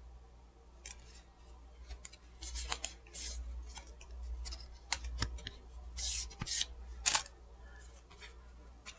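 A small paperboard cosmetics box being opened and handled by hand, and the blush palette taken out: quiet, scattered short scrapes, rustles and clicks at an uneven pace.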